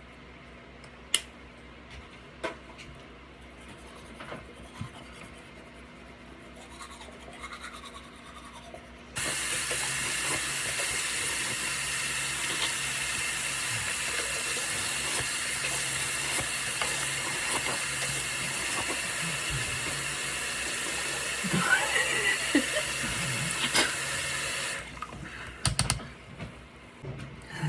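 Bathroom sink faucet turned on about nine seconds in and running steadily for about fifteen seconds, with splashing near the end, then shut off suddenly. Water for rinsing after brushing teeth. Only a few faint clicks come before it.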